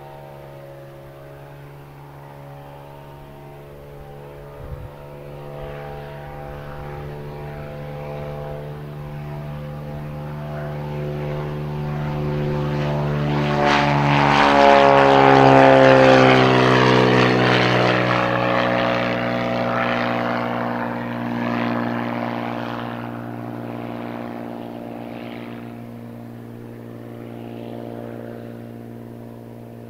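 Cirrus SR22's six-cylinder piston engine and propeller at full takeoff power. The sound grows louder as the plane rolls and lifts off, peaks about halfway as it passes close, then drops in pitch and fades as it climbs away.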